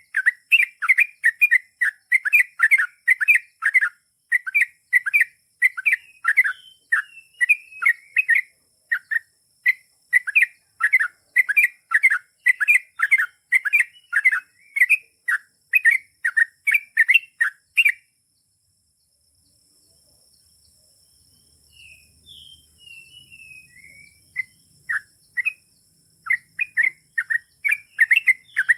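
Yellow-vented bulbul (trucukan) singing a long chattering run of short, quick notes, about three a second. The run cuts off suddenly about 18 seconds in; after a brief silence come a few scattered higher calls, and the fast run starts up again near the end.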